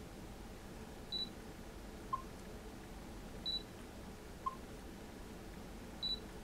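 Canon EOS M mirrorless camera beeping as its autofocus locks: three short high beeps, each followed about a second later by a shorter, lower blip.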